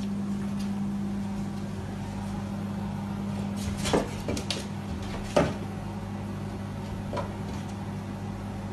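A steady low hum with a few sharp taps on glass as a cat paws at a glass door, the two loudest taps about four and five and a half seconds in.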